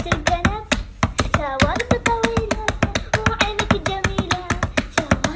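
A voice chanting a sing-song rhyme over a fast, even beat of sharp taps.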